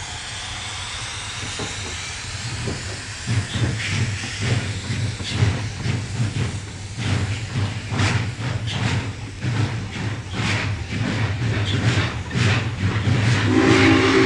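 Recorded Union Pacific Big Boy 4-8-8-4 steam locomotive pulling out with a train, played from a vinyl record: steam hissing, then exhaust beats that quicken to about two a second. A chord steam whistle begins to sound near the end.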